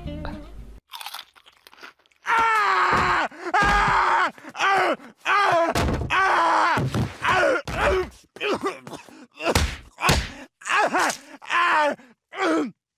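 A cartoon man's voice groaning and moaning in exaggerated agony, over and over. The groans start about two seconds in with two long, falling ones, then come as shorter cries in quick succession. It is a comic show of disgust at the taste of a rice cake.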